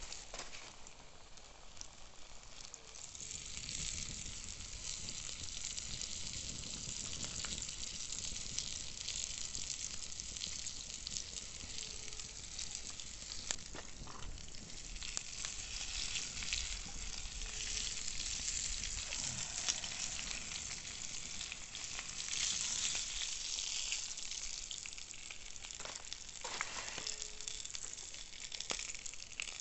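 Floured fish pieces frying in hot oil and fat in a small pan over a wood fire, a dense, crackling sizzle. It grows louder about three seconds in as the fish goes into the pan, with a few light clicks of knives turning the pieces.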